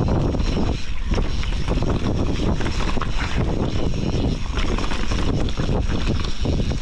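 Mountain bike riding down a rough dirt trail: wind rushing over the microphone, with a steady low rumble and frequent knocks and rattles from the bike bouncing over the ground.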